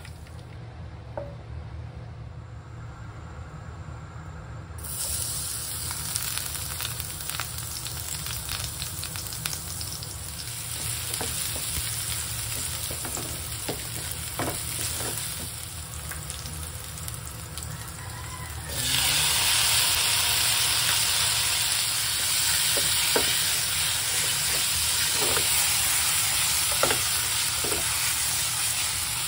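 Sliced onion and minced garlic sizzling in hot oil in a nonstick frying pan, stirred with a wooden spatula that scrapes and taps the pan now and then. The sizzle starts about five seconds in and jumps louder about two-thirds of the way through, with chopped tomatoes frying in the pan by the end.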